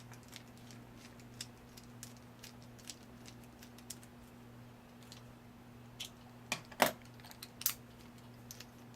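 Small metallic clicks and taps from a screwdriver and padlock parts being handled, sparse at first, with a cluster of louder clicks and knocks about six to eight seconds in. A steady low electrical hum runs underneath.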